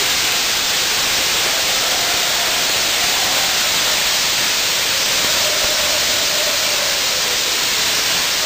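Ground fireworks burning with a steady, loud hissing rush of spraying sparks, with a faint wavering whine underneath.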